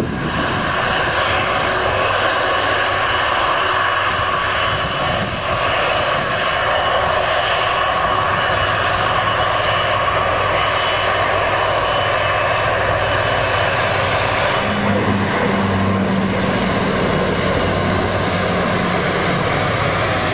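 Fixed-wing aircraft engines running, a steady loud noise with several steady tones in it. A lower hum joins about 15 seconds in.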